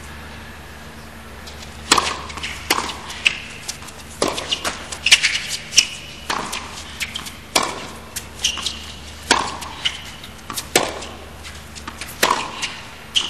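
Tennis rally on a hard court: racket strikes on the ball and ball bounces, sharp knocks coming every second or so and starting about two seconds in.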